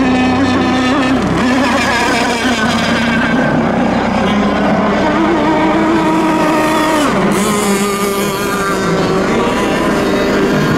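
Several RC racing boats' motors running flat out on test laps, overlapping. Their notes rise and fall as the boats pass, with a sharp drop in pitch about seven seconds in.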